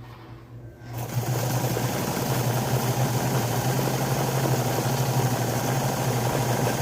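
Electric sewing machine running steadily as a seam is stitched. It starts up about a second in, with a constant low hum.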